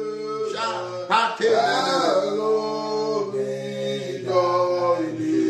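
A man singing a slow worship song, gliding into and then holding long sustained notes.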